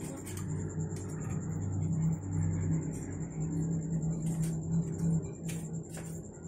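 A steady low motor hum, like an engine running nearby, swelling through the middle and easing off near the end, with a thin high-pitched tone running underneath.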